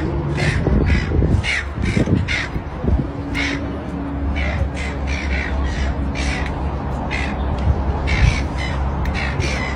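Short bird calls repeated about twice a second, over a low steady hum.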